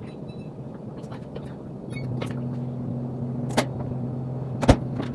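Electric oven being set to preheat: a few short high beeps from its control panel, then a steady low hum starts about two seconds in as the oven comes on. Two sharp knocks are heard near the end.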